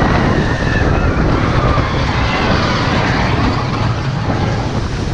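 Seven Dwarfs Mine Train roller coaster cars running along the track, a steady loud rumble heard from aboard the back car.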